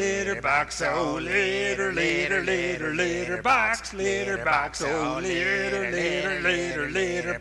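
Men's voices singing in harmony as a vocal quartet, long held notes with a wavering pitch.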